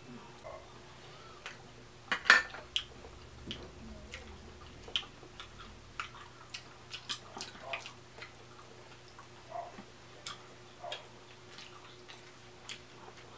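Close-up sounds of eating a seafood boil: irregular clicks, taps and smacks of chewing and of handling food and dishes, the loudest about two seconds in.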